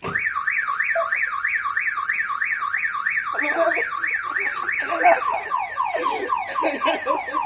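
Car alarm siren sounding: a fast warble sweeping up and down about four times a second, which switches a little over three seconds in to a rapid series of falling chirps.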